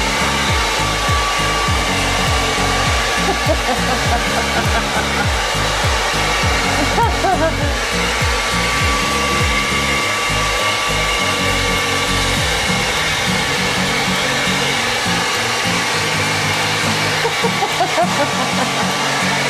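Handheld blow dryer running steadily.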